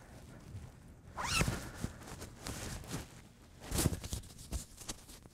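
Rustling of a doctoral robe being put on and adjusted. There is a short rising rasp about a second in and another loud rustle near four seconds.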